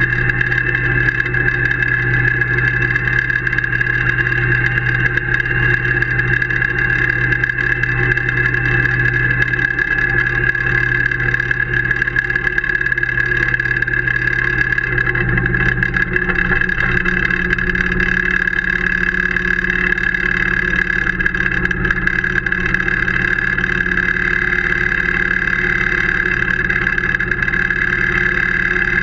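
Tractor engine running steadily while towing a brush implement across a synthetic turf pitch; its low note steps up about halfway through.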